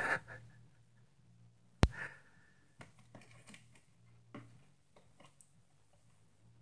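A conure moving about inside a cardboard cereal box: a loud rustle at the start and a sharp tap about two seconds in, then faint scratching and rustling of the cardboard.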